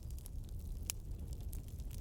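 Wood fire crackling in a fireplace: irregular sharp pops and snaps over a low steady rumble, with one louder pop about a second in.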